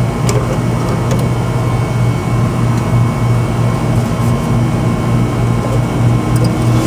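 Steady low machine hum with a slight regular pulsing, a few faint clicks over it, and a faint higher tone rising gently near the end.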